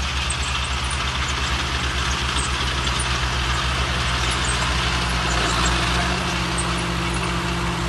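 Farm tractor's diesel engine running steadily under load as it pulls a mounted plough through the soil, its note rising slightly about six seconds in.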